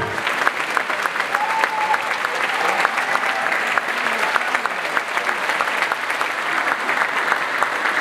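Large concert audience applauding: dense, steady clapping from a full hall.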